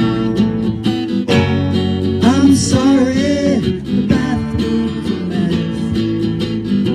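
A band playing a song with strummed guitars and a steady beat. About two seconds in, a melody line that slides and wavers in pitch rises above the band for about a second and a half.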